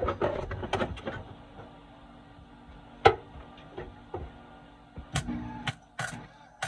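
Scattered knocks, clicks and clanks of hand tools and metal parts being handled during car body structure repair, with one sharp strike about three seconds in and a cluster of knocks near the end.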